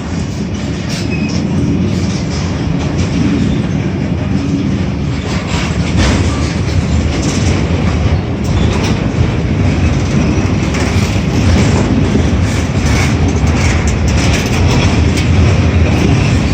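Container freight train rolling past at close range: a steady, loud rumble of wagons with the wheels clicking over rail joints.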